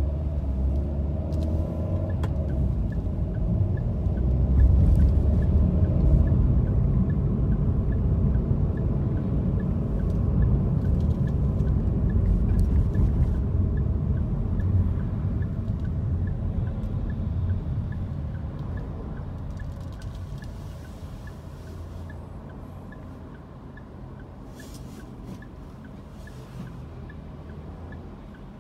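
Car driving in city traffic, heard from inside the cabin: a steady low rumble of engine and road noise that fades down over the last third. A faint regular ticking runs underneath.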